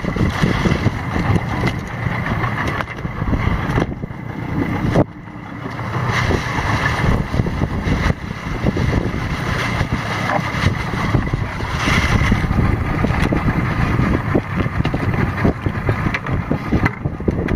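Small boat with a 40 hp outboard motor under way in rough sea: engine running under the steady rush of wind buffeting the microphone and water splashing against the hull. The noise drops briefly about five seconds in.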